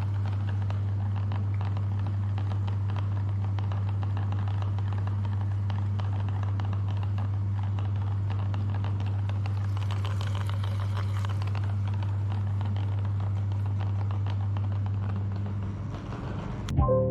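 Electric meat grinder motor running with a steady low hum and a faint crackle. It cuts out near the end.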